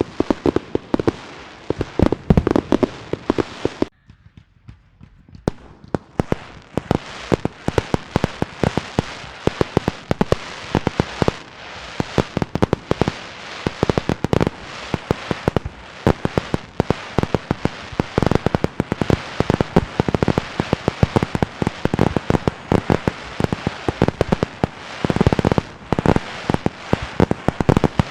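Fireworks and firecrackers going off in a dense, rapid crackle of sharp pops. The crackle breaks off briefly about four seconds in, then starts again.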